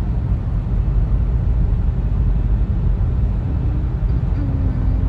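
Steady low rumble of a car driving, with engine and tyre noise heard from inside the cabin.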